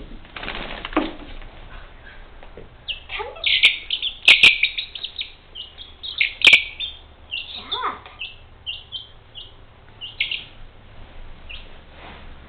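A week-old chicken chick peeping: many short, high, falling peeps, coming thickest and loudest in the middle of the stretch. A few sharp clicks sound among the loudest peeps.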